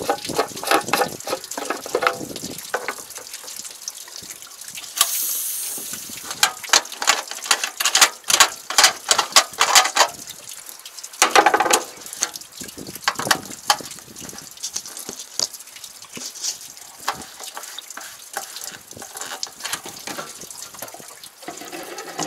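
Hands handling a machine's fuel tank cap and filler: many sharp clicks and knocks of plastic and metal parts being worked. A brief rushing hiss comes in about five seconds in, and another short rush comes a little before halfway through the second half.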